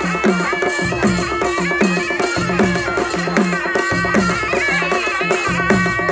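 Nepali naumati panche baja band playing folk dance music: sahanai reed pipes carry a held, stepping melody over steady drum beats, about two or three a second, with cymbals clashing throughout.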